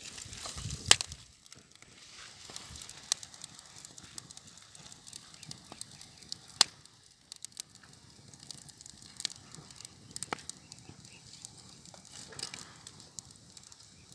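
Open wood fire crackling, with scattered sharp pops, the loudest about a second in and again a little past six seconds, under fish roasting on a bamboo skewer.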